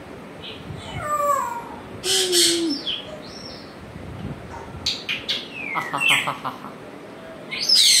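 African grey parrot calling in a mixed run of sounds: falling whistles about a second in, a harsh noisy call around two seconds, clicks around five seconds, a quick rattle of short repeated notes around six seconds, and a loud call near the end.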